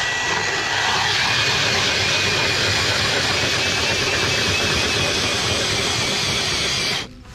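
Powered ice auger boring through lake ice: a steady, loud grinding hiss of the blades cutting, with a thin motor whine that steps up in pitch about a second in. It starts and stops abruptly.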